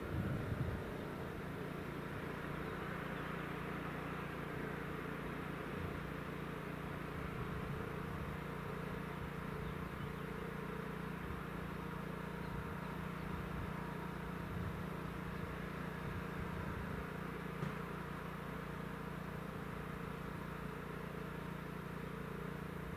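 A steady low hum under a faint noisy background, holding level with no rise or fall.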